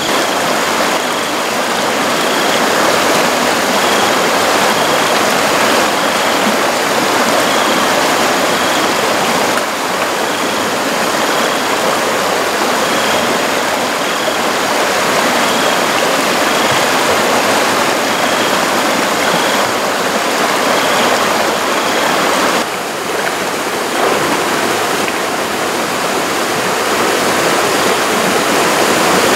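Shallow river rushing steadily over rocks. A faint high chirp repeats about every second or so through much of it.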